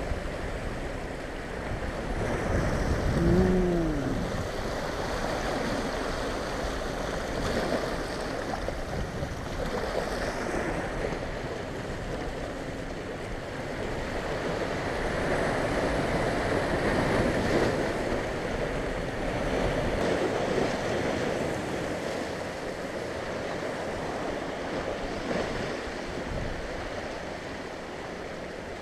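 Sea waves surging and washing over a rocky shoreline, the wash swelling and easing every few seconds, with wind buffeting the microphone. A brief low pitched sound stands out about three seconds in.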